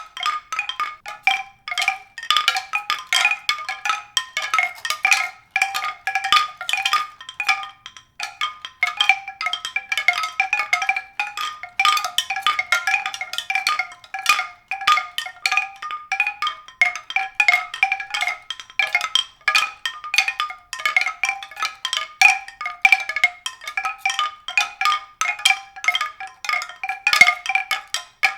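Rapid, continuous struck notes of mallet percussion, several a second, ringing at a few recurring pitches.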